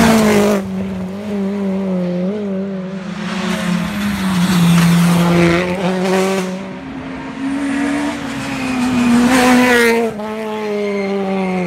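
Two rally cars driven hard on a tarmac stage. The first passes close at the start, then the engine note of the second rises and drops repeatedly through gear changes as it approaches, passing about ten seconds in.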